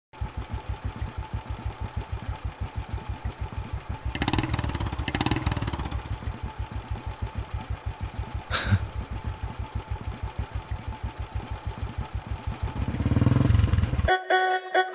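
Single-cylinder Royal Enfield Bullet motorcycle idling with a steady, even thump. It is revved up briefly twice about four seconds in and again near the end, with one sharp click about midway. The engine sound cuts off abruptly just before the end as music comes in.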